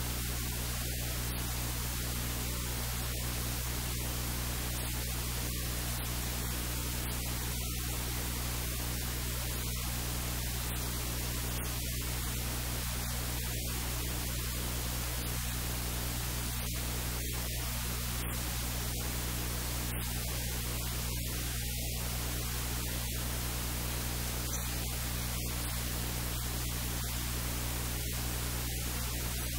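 Steady hiss of static with a low electrical hum underneath, unchanging throughout; no voice or kitchen sounds come through.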